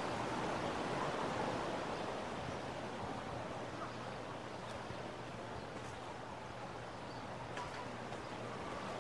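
Ocean surf washing on a beach: a steady rush of waves that eases a little after the first couple of seconds.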